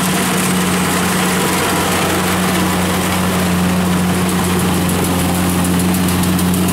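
Kubota DC-70 rice combine harvester running under load as it cuts and threshes rice: a steady diesel engine and threshing drone with a constant low hum.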